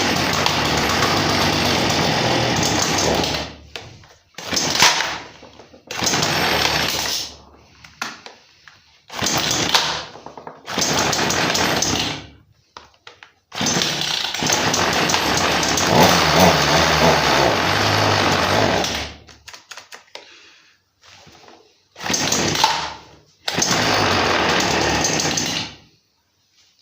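Two-stroke MTD chainsaw engine running in repeated loud bursts of about one to six seconds, each starting abruptly and cutting out, with short quiet gaps between them; the longest run lasts about six seconds in the middle.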